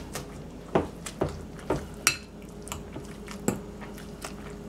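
Wire potato masher clinking against a glass bowl as it mashes bread, in a string of irregular taps.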